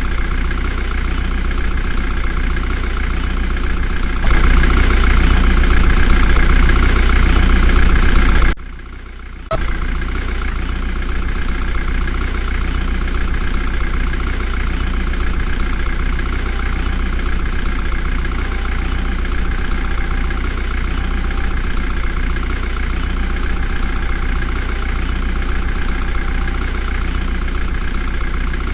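Heavy diesel engine running steadily, louder for about four seconds from around four seconds in, then briefly cutting away for about a second before running on.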